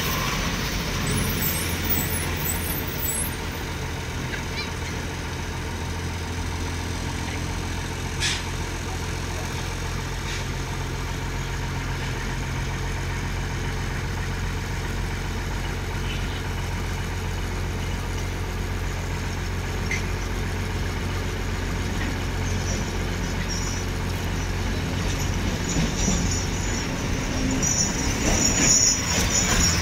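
Diesel engine of a Demag HC 130 mobile crane running steadily with a constant low drone while the crane holds and slews a steel girder.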